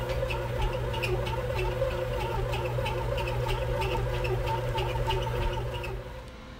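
Oster 2 lb ExpressBake bread machine running its kneading motor on French bread dough: a steady hum with a quick ticking, about three ticks a second. It stops about six seconds in.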